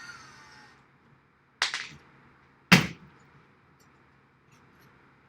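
A drill's motor whine winds down and fades in the first second. Then come two sharp knocks of hard parts being set down, about a second apart, the second the louder, and a short click at the end.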